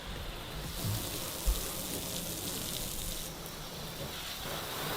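Water spraying steadily from a hose as the car is washed down, a continuous hiss that sets in just under a second in.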